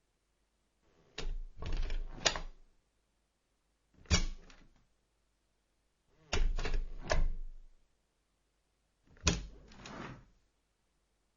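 Wooden door being opened and closed, in four separate bouts of latch clicks and wooden knocks with pauses between them.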